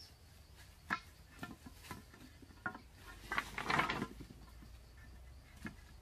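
Bamboo poles being laid on packed dirt and shifted into place: scattered light knocks and taps, with a short spell of denser clattering and scraping a little past the middle.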